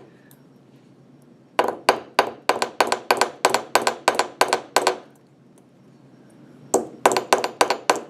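Small hammer tapping a wire rivet head against a steel anvil, forming the rivet's second head: quick, sharp metallic taps about four to five a second, in two runs with a short pause between them.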